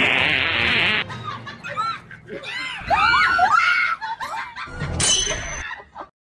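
Women screaming in fright: a loud, harsh shriek in the first second, then several high, wavering screams.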